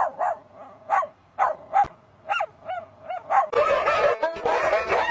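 A dog giving a string of about ten short, high yips and barks with gaps between them. About three and a half seconds in, the sound cuts abruptly to a busier, noisier recording with wavering pitched sounds.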